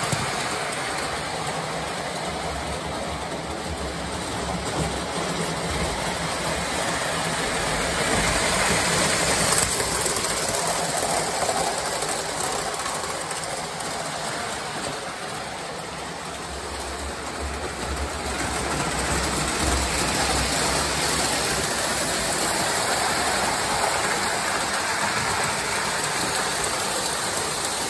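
O scale three-rail model trains running on tubular steel track: a steady whir of the locomotive motors and rumble of wheels on the rails. It grows louder and fades as the trains pass near, dipping about halfway through and swelling again after.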